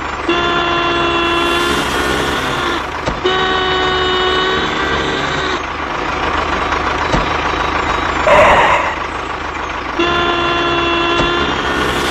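Vehicle horn sounding three long blasts of about two seconds each, the second following closely on the first and the third near the end, over a small engine running steadily. There is a short hiss between the second and third blasts.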